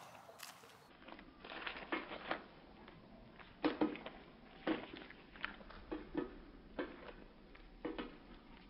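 Hens pecking at vegetables and a corn cob in a hanging wire feeder: short, sharp taps at irregular intervals, roughly one or two a second.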